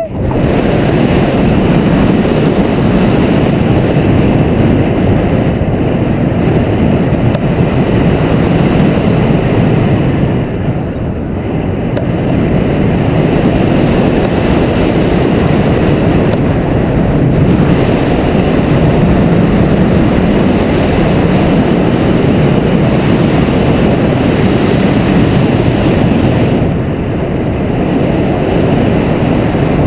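Wind buffeting the microphone of a wing-mounted camera on a hang glider in flight: a loud, steady rushing from the glider's airspeed. It eases slightly twice, about a third of the way in and near the end.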